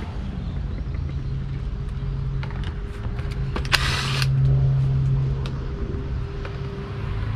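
Cordless drill running steadily on the bolts that hold the fan blade to its fan clutch, with a short sharp clatter about four seconds in.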